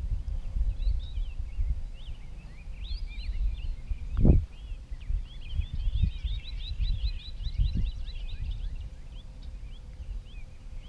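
Small birds chirping, with a fast trill of rapid repeated notes in the middle, over a steady low rumble and a single thump about four seconds in.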